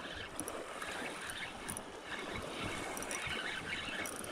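Small waves lapping at a lakeshore, making a steady watery hiss, with a few faint high ticks scattered through it.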